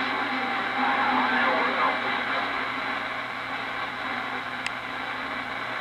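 CB radio receiver on the 11-meter band hissing with static, with faint Japanese voices from long-distance skip fading in and out through the speaker, fainter after the first couple of seconds.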